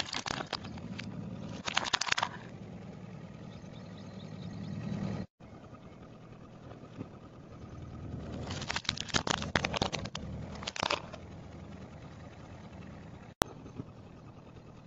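A car tyre rolling over and crushing small plastic toys: bursts of crunching and crackling plastic near the start, about two seconds in, and again from about eight to eleven seconds, over the steady low rumble of the car's engine.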